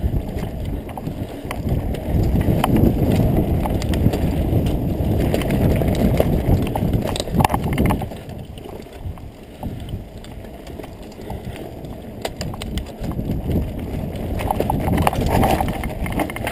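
Mountain bike riding over a bumpy dirt trail: a steady rumble of tyres and jolting, with scattered rattles and knocks over the bumps. Loudest in the first half, quieter from about eight seconds in, building again near the end.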